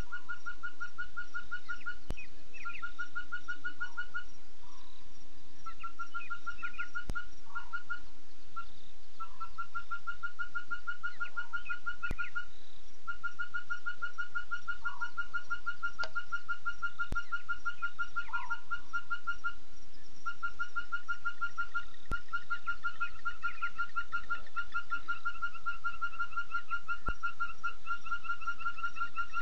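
Pre-dawn African bush night chorus: a rapid, even trill repeats in bouts of a few seconds, with short scattered calls in between. A few sharp clicks and a faint steady hum sit underneath. No lion or buffalo sounds are heard.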